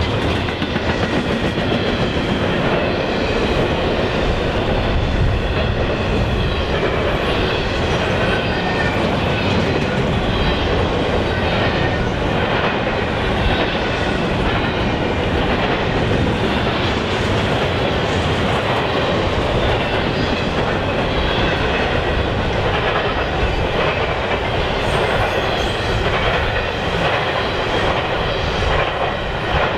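Union Pacific intermodal freight train's container and flat cars rolling past, a loud steady rumble of steel wheels on rail with a continuous clickety-clack of wheels over rail joints.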